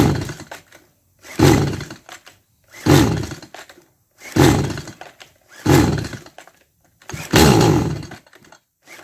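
Stihl MS 180 chainsaw's recoil starter cord pulled hard six times, about a second and a half apart, with the trigger held at full throttle to clear a suspected flood. The engine turns over but does not catch, a fault the owner traced to a carbon-fouled spark plug.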